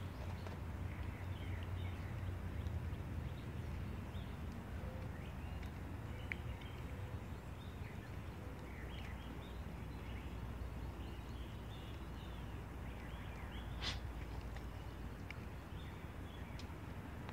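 Backyard outdoor ambience: a steady low rumble with small birds chirping in short snatches, and a few sharp pops from a paper-and-stick fire burning in a metal pot, the loudest pop about 14 seconds in.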